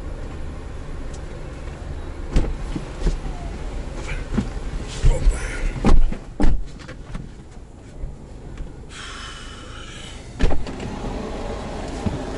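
Passengers climbing into the back seat of a car: doors, seats and bags give a series of bumps and knocks, with the loudest thumps about midway through. A hissing noise comes in for a second or so near the end, followed by another thump.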